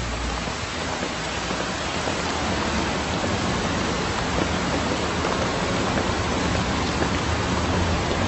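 Steady rain falling, an even hiss that grows slowly louder.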